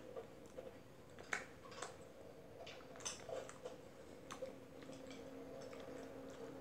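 Faint, scattered small clicks and ticks over a low steady hum, with a sharper click about a second and a half in.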